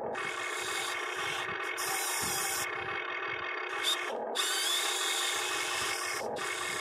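Huina 580 RC excavator's electric motors and gears whirring as it works, cutting out briefly twice, about four and six seconds in.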